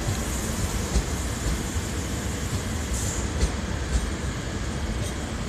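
Francilien Z 50000 electric multiple unit pulling away on the far track: a steady rumble of wheels on rails, with a few faint clicks.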